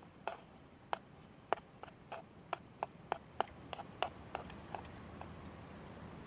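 A series of light, sharp clicks and knocks at an uneven pace of about two a second, stopping about five seconds in.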